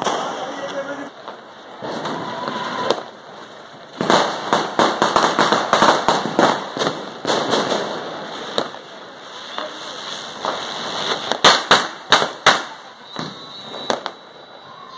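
Ground fireworks going off on a tiled floor: a fizzing hiss at first, then from about four seconds in a dense run of rapid crackling, with a handful of louder sharp cracks a little past the middle.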